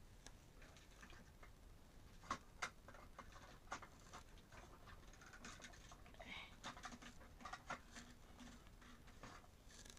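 Faint, scattered clicks and taps of hard plastic toy pieces being handled: a pony figure and a toy train's cars and roofs. A few sharper clicks stand out between about two and four seconds in and again near eight seconds.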